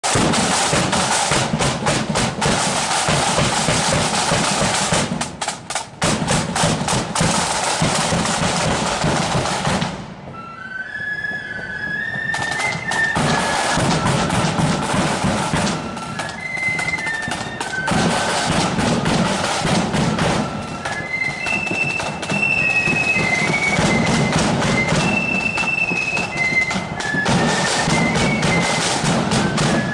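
Marching flute band: snare and bass drums play alone for about ten seconds, break off briefly as the flutes strike up a tune, then come back in under the melody.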